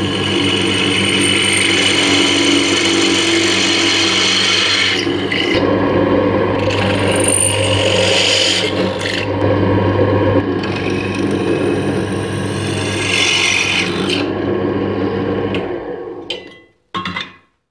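Benchtop drill press running steadily while its bit bores through a sheet-metal bracket, with scraping cutting noise and brief high squeals. The motor is switched off and runs down near the end.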